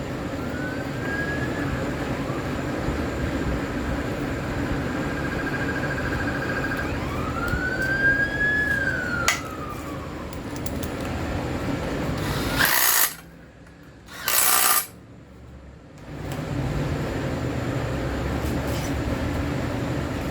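Steady background hum with a faint siren wailing, rising and falling twice. Two short, loud bursts of noise come about two-thirds through, each followed by a sudden quiet gap.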